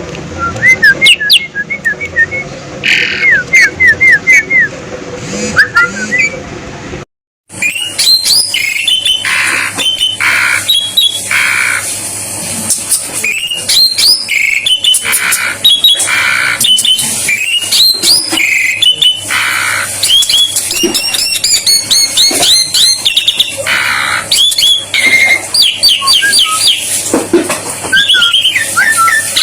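Asian pied starling singing a loud, varied song of quick whistles, chatters and short buzzy notes, many of them repeated in fast runs. About seven seconds in, the song breaks off for a moment and resumes in another recording.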